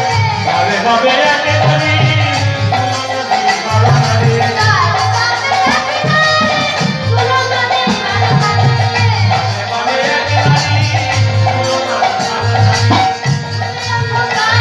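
Live Bengali devotional folk music: two khol drums beating a steady rhythm with harmonium, and a singer's voice over them.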